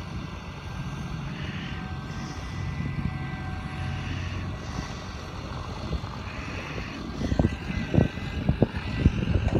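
Farm tractor's diesel engine running steadily while its front loader and bale grab lift a plastic-wrapped silage bale, with a faint high steady whine over the drone. Several sharp knocks come near the end.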